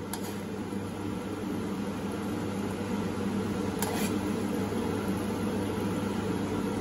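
Steady low hum, with a slotted metal spatula clicking against the kadai once about four seconds in as the tomato-onion tadka is stirred.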